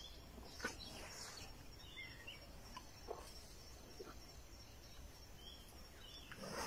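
Quiet forest ambience: a faint steady high insect drone, a few short bird chirps about two seconds in, and scattered short rustles and snaps of brush and dry leaves, the loudest near the start and near the end.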